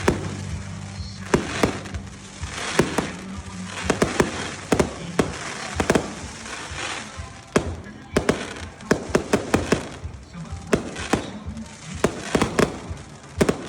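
Fireworks going off: many sharp bangs of bursting shells, some single and some in rapid volleys, with crackling between them. Music plays underneath.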